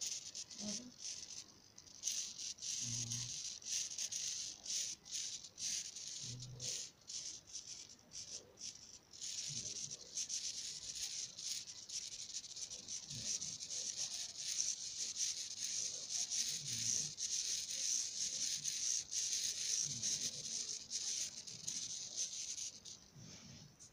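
Two blue SG90-type micro servo motors whirring and chattering with rapid gear clicks as they turn, following the tilt of an MPU6050 motion sensor. A few short low hums come near the start.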